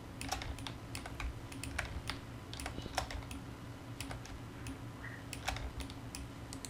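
Irregular clicks and taps of a computer keyboard and mouse, over a steady low hum.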